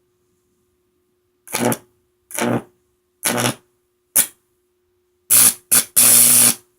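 High-voltage arcs from a microwave oven transformer buzzing through an apple in seven bursts. They come at roughly one-second intervals, then quicker near the end, and the last and loudest arc lasts most of a second. A faint steady transformer hum runs underneath.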